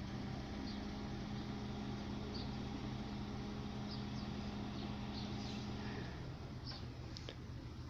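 A steady low mechanical hum, like an engine or motor running at an even speed, that cuts off about six seconds in. A few short high chirps come and go over it.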